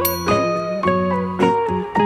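Background music of plucked, pitched notes in a steady rhythm. A brief high tinkling chime sounds at the very start.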